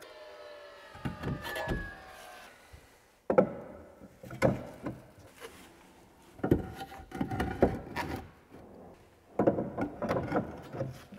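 Knocks and clatter of Versetta stone panels, a manufactured concrete stone veneer, being handled and set in place against the chimney. There are about half a dozen sharp knocks, each followed by a short rattle.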